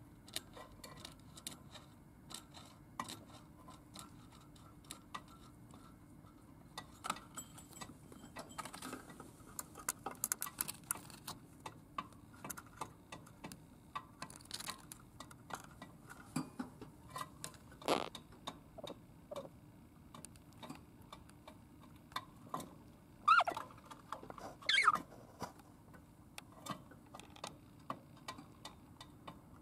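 Lutino budgerigar pecking and clicking its beak, a run of small sharp ticks, with two short, louder chirps a few seconds before the end.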